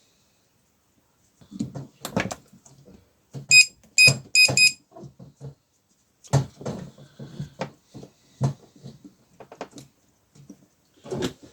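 Irregular knocks, clicks and clatter of small parts and tools being handled on a workbench during battery tab soldering. About a third of the way in come four short, high electronic beeps in quick succession.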